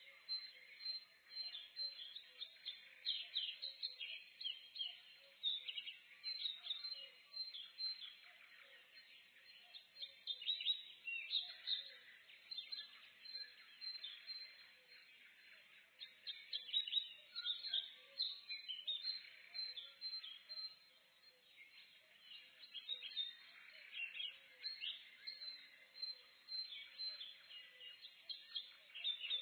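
Many birds chirping and singing together in a forest, a morning chorus of short high chirps and trills that come in bursts every few seconds.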